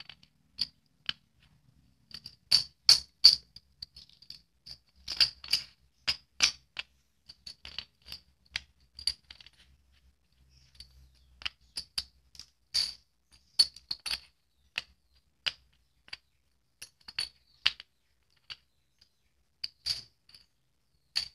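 Metal crown bottle caps clinking against one another and clicking down onto cardboard as they are picked up by hand and set out one at a time. The clicks come irregularly, sometimes in quick clusters of two or three.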